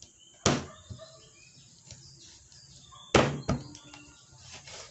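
Knife chopping raw chicken on a wooden cutting board: three sharp thunks, one about half a second in and two close together just after three seconds.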